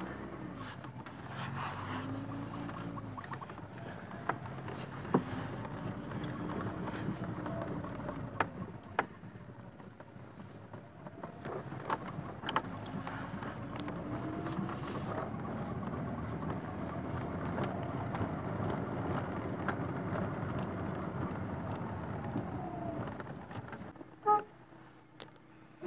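Car driving on a dirt street, heard from inside the cabin: the engine note rises and falls as it accelerates and shifts gears, over steady road noise, with scattered clicks and knocks. Near the end it slows and settles to a quieter idle.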